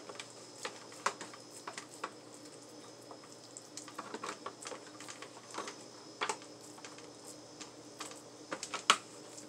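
Hands patting and shaping raw ground-turkey meatloaf mixture into a loaf: soft, irregular pats and clicks, with one sharper click near the end.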